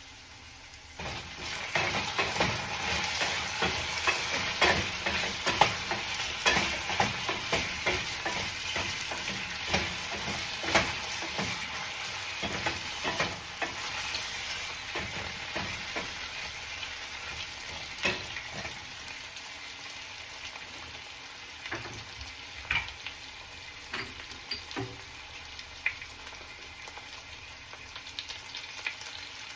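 Potatoes frying in hot oil in a pan. The sizzle starts suddenly about a second in, full of crackles and pops, is loudest for around ten seconds, then settles to a quieter hiss with occasional pops.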